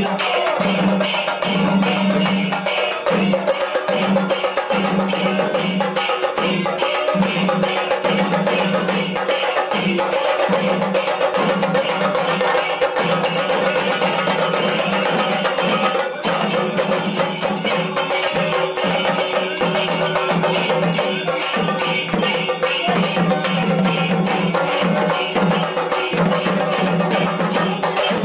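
Chenda drums beaten fast with curved sticks together with clashing ilathalam hand cymbals, a loud chenda melam ensemble playing without a break.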